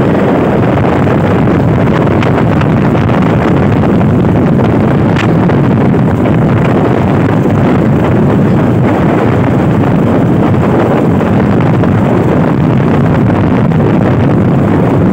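Wind blowing hard across a phone's microphone: a loud, steady rushing noise that buries everything else.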